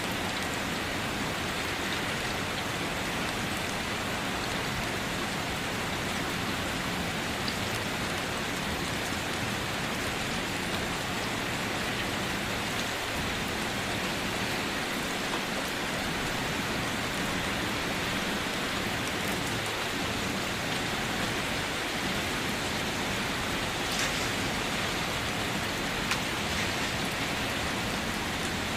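Steady rain falling: an even hiss with a few sharper drop ticks standing out now and then.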